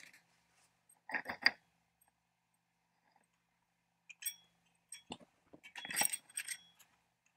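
Metal clinks and scrapes as a screwdriver works at the springs and shoes of a chainsaw's centrifugal clutch. They come in a few short clusters: one about a second in, a couple around four to five seconds, and the longest and loudest near six seconds.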